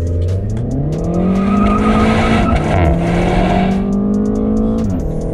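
Renault Mégane RS's 1.8-litre turbocharged four-cylinder held at about 2,500 rpm on launch control, then released at full throttle: the revs climb hard, drop at a quick upshift of the dual-clutch gearbox about two and a half seconds in, climb again, and drop at a second upshift near the end.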